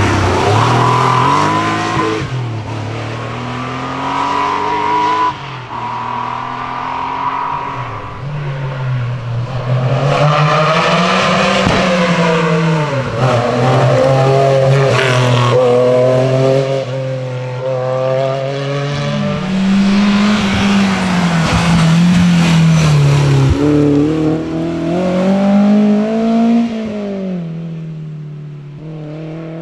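A series of historic rally cars, among them a Porsche 911 with its flat-six and an MG Metro 6R4 with its V6, driven hard past one after another, engines revving up and dropping back repeatedly through gear changes and corners. The sound eases near the end as a car pulls away.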